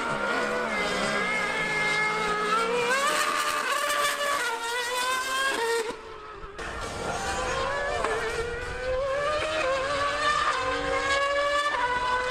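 A Mercedes Formula One car and a Yamaha R1M superbike accelerating hard from a standing start, their engines revving up in pitch and dropping back through several quick upshifts. The sound dips briefly about halfway through, then climbs again.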